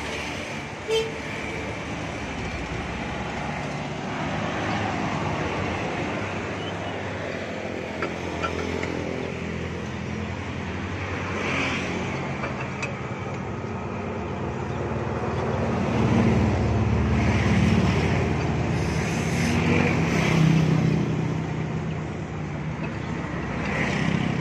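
Road traffic passing, with a heavy vehicle's engine rumble growing louder about two thirds of the way through. A few sharp metallic clinks from a wrench at a truck's wheel hub come through.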